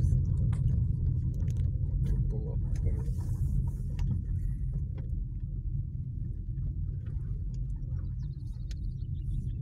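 Car cabin rumble from tyres and suspension crawling over broken, gravel-like asphalt full of potholes, with scattered knocks and rattles that thin out after about five seconds.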